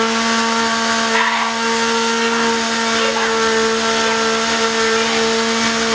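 A small motor running flat out at a steady high pitch, with a few faint short squeals heard over it.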